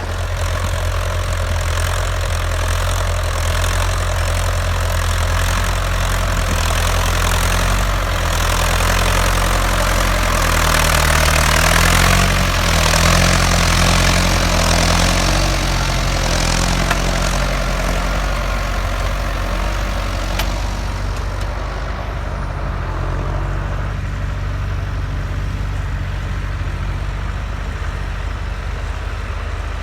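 Diesel tractor engine running steadily under load while ploughing, its pitch wavering slightly around the middle, with a hiss over it that eases about two-thirds of the way through.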